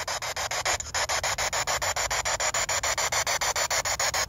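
P-SB7 spirit box radio sweeping the FM band, giving out static chopped into short, even bursts many times a second as it hops from station to station.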